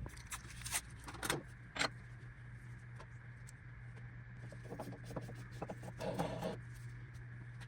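Scattered metal clicks and knocks of hands working on a lathe's pulley and belt while checking that they are aligned and tight. A few sharp clicks come near the start and a rattly cluster comes about five to six seconds in, over a steady low hum.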